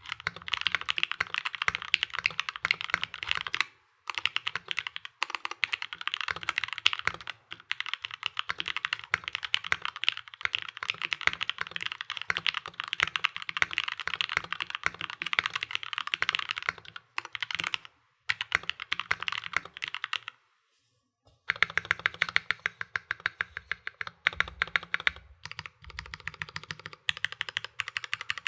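Typing test on a custom 65% mechanical keyboard with an acrylic case and plate, foam, lubed Gateron Yellow KS3 linear switches and Durock V2 stabilizers. Rapid key presses run in fast continuous streams, with a brief pause about twenty seconds in.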